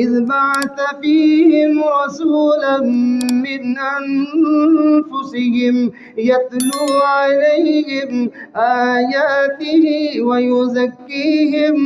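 A man's voice chanting Quranic Arabic in a melodic recitation, with long held, wavering notes and short breaths between phrases.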